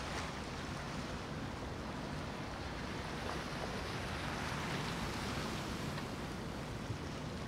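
Steady rush of choppy water and wind on the microphone as a large flybridge motor yacht cruises past, its wake and engines blending into one even wash of noise.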